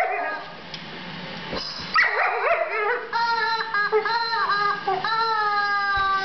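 Rubber chicken squeak toy squawking as a dog bites and squeezes it: a run of squawks starting about two seconds in, the last one drawn out and sinking slightly in pitch.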